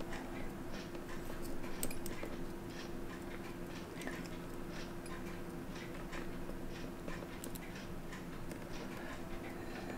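Faint scattered small clicks and ticks of steel tweezers against a stainless steel watch case as a chronograph pusher is drawn out of it, over a steady hum.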